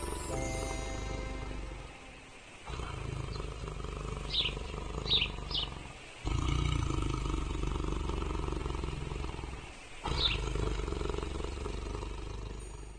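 A sleeping tiger purring: a low rumble in long pulses of three to four seconds each, with short breaks between. A few short high chirps sound over it.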